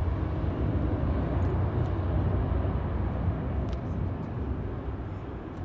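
Airbus A321-211's CFM56 turbofans heard from the ground as the airliner climbs away after take-off: a steady low rumble that fades a little near the end.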